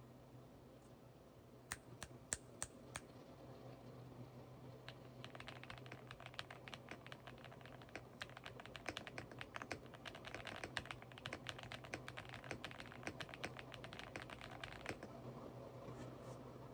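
ElecFox Linky87 mechanical keyboard being typed on: a few single keystrokes about two seconds in, then fast continuous typing for about ten seconds that stops shortly before the end.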